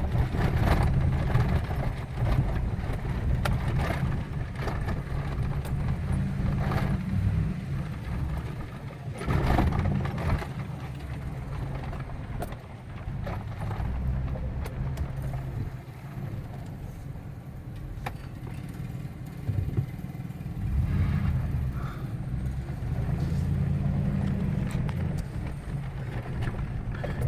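Truck driving slowly on a dirt road, heard from inside the cab: a steady low engine and tyre rumble that rises and falls, with scattered short knocks and rattles from the bumps.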